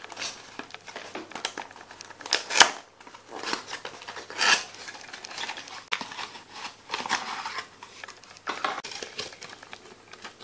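Handling sounds from opening a small cardboard box and pulling out a string of silver-bead wire fairy lights: irregular rustling and scraping of card with light clicks.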